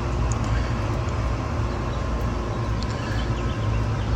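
A steady low mechanical hum, like a motor running, with a couple of faint ticks.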